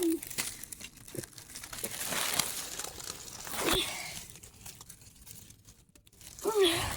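Irregular rustling and crackling of dry nesting material being handled while eggs are gathered from a nest pile, busiest in the first four seconds and dying down after about five seconds.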